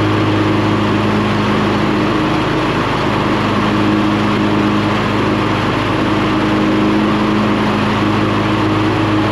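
John Deere X300 riding mower's V-twin engine running at a steady speed, test-run on a freshly replaced control board.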